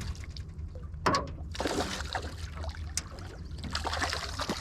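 Water splashing beside a small boat as a hooked chain pickerel thrashes at the surface, with a sharp knock about a second in, over a steady low hum.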